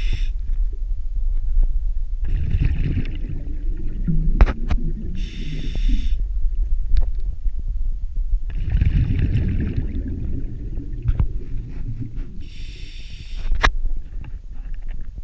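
Scuba diver breathing through a regulator underwater: a hissing inhalation about every three to four seconds, with exhaled bubbles gurgling and rumbling in between.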